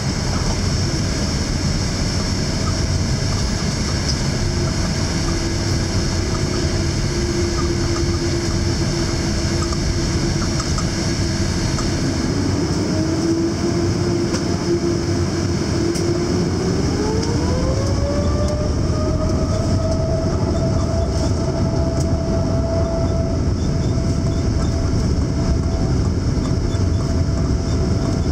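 Jet engine and cabin noise inside a Boeing 787-8 Dreamliner during take-off: a steady rumble and hiss, with a whine that rises sharply in pitch about two-thirds of the way in as the engines come up to take-off power, then holds.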